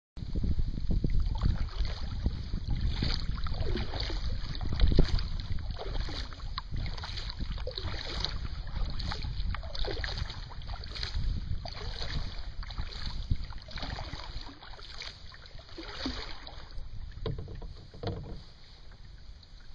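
Kayak moving over choppy water: paddle strokes and water slapping the hull about once a second, with small gurgles and wind rumbling on the microphone.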